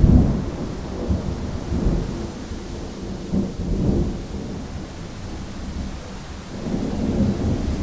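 Rolling thunder rumbling low in several swells, loudest right at the start, over a steady rush of wind.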